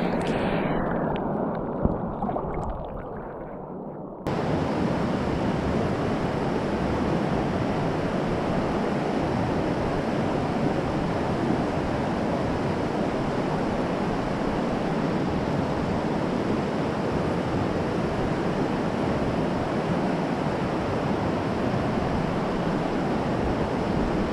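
Steady rush of river water running through a riffle. For the first few seconds it is muffled, with the microphone dipped under the water, then it cuts back sharply to the open rush about four seconds in.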